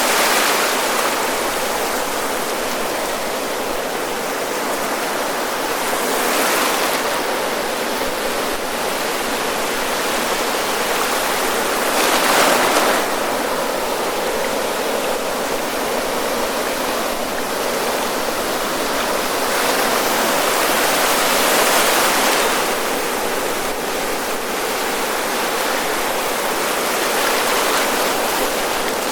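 Ocean surf breaking on a sandy beach: a steady rush of wash and foam, with waves crashing and hissing up about every six to eight seconds, the loudest about twelve seconds in.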